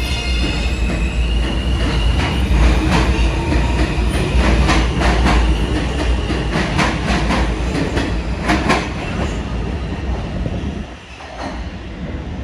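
New York City Transit R160 subway train departing a station: a loud low rumble with pairs of clicks as the wheel sets cross rail joints, and a high electric motor whine in the first couple of seconds. The rumble drops away sharply about eleven seconds in as the last car clears the platform.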